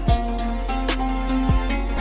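Background music: held melody notes over a steady low bass, with two deep drum hits about a second and a half apart.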